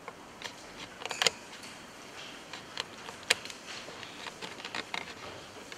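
Scattered, irregular light clicks and knocks over faint room noise, with two sharper ones about a second in and again about three seconds in.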